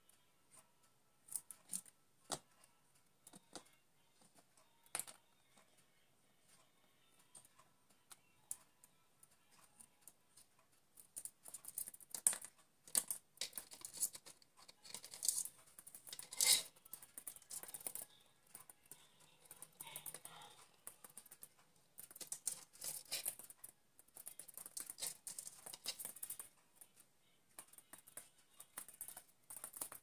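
Budgerigar's beak and claws tapping and scraping on a wooden tabletop and a small mirror as it picks up and drops a small toy. Light, irregular clicks and scratches, sparse at first and much busier from about ten seconds in.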